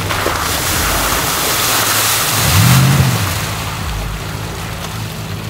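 Y62 Nissan Patrol's V8 engine revving as the 4WD ploughs through a muddy water hole, with a loud rush and splash of muddy water over the first three seconds. The engine revs up and back down about two and a half seconds in.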